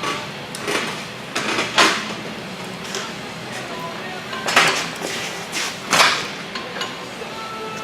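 Heavy steel engine-stand adapter brackets clanking and knocking against the engine block and stand while being fitted: about eight irregular metal hits, the loudest near two seconds in, in the middle and near the end.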